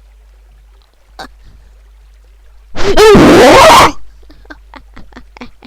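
A single very loud, distorted vocal burst lasting about a second, coming nearly three seconds in, followed by a run of short faint sounds a few times a second.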